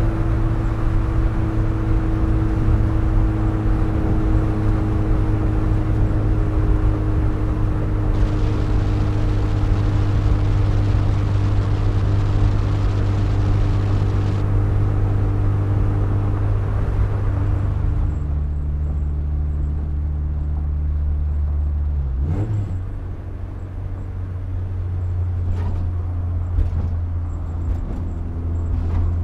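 Volkswagen Rabbit pickup's four-cylinder engine running steadily while driving, with tyre and road noise. About eighteen seconds in the engine note drops, and a little after twenty-two seconds the sound dips briefly before the engine picks up again.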